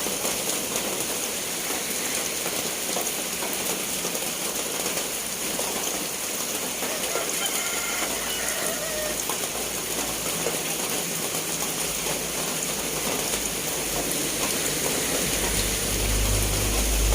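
Steady rain falling, an even hiss of drops on surfaces. A low rumble swells in near the end.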